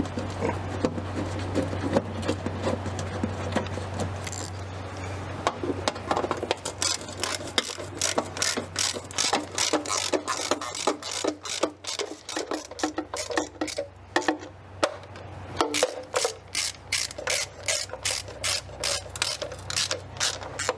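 Hand ratchet wrench clicking rapidly as a fastener is turned, with a steady low hum under the first half that fades out about halfway.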